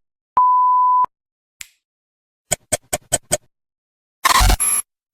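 A single steady pure-tone bleep of the kind used to censor words, lasting about two-thirds of a second. It is followed by a faint short chirp, a quick run of about six clicks, and a short loud noisy burst near the end.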